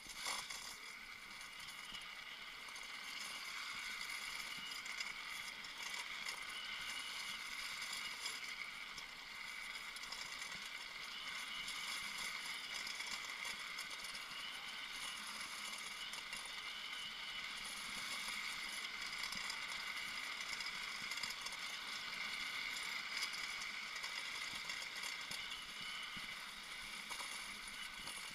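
Drift trike rolling fast downhill on asphalt: a steady hiss and whirr of the wheels on the road with light rattling of the frame, after a single sharp knock at the very start.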